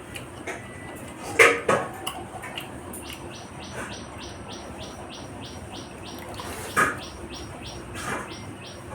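A person eating at close range, with a few short, sharp eating noises: two about a second and a half in and two more near the end. Behind it, an insect chirps rapidly, about four chirps a second, for around four seconds in the middle.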